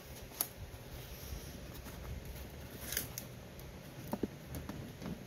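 Gloved fingers working at the pull tab of a soldered zinc ammunition tin: faint scraping and scratching of leather on sheet metal, with a few small clicks and short squeaks.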